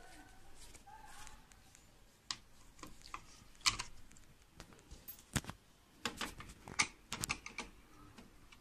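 Irregular light clicks and taps of a screwdriver working the screws and metal fittings of a PVC window's espagnolette locking hardware while it is being removed.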